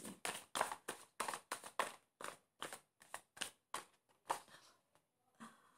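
A deck of tarot cards being shuffled by hand: a quick run of short papery slaps, about four a second, thinning out after about four and a half seconds.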